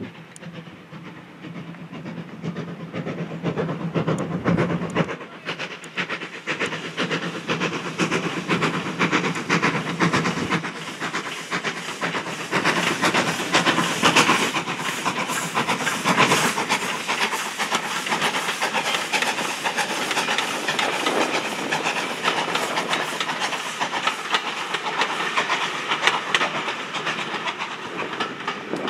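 LB&SCR E4 class 0-6-2 tank engine No. 473 working a passenger train, its exhaust beating as it approaches and passes close by, loudest about fourteen seconds in. After it passes, the coaches rattle steadily over the rail joints.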